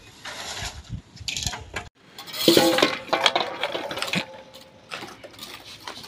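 Short clinks and knocks of bricklaying work, bricks and a mason's trowel striking one another.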